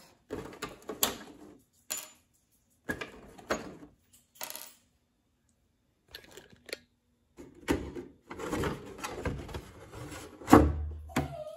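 Clicks and light metallic rattles of an RC truck's body clips being pulled off and set down on wood, then the clatter of the plastic body shell being lifted off, with a louder thump about ten and a half seconds in.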